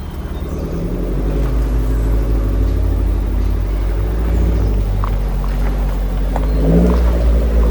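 Off-road 4x4's engine pulling under load, revs climbing over the first second or two and then holding, with a few light knocks in the second half.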